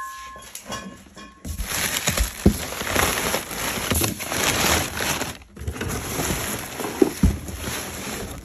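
Crinkling and crackling of kraft packing paper and bubble wrap being pulled about inside a cardboard box, starting about a second and a half in, with a short pause around the middle.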